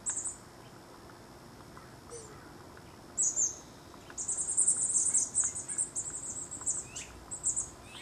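Small songbirds at a feeder, house finches and chickadees, chirping high and quick. After a couple of short chirps, a long run of rapid high chirping starts about halfway through and lasts a little over two seconds, followed by a few short calls.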